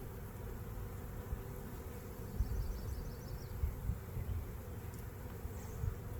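Honey bees buzzing around an open hive, a steady hum, with a few low thumps from frame handling or the microphone.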